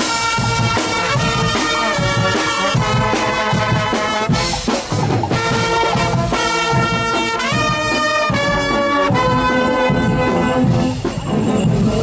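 Brass band playing loudly, trumpets and trombones sounding held notes and chords that change every second or so, over a low thudding beat.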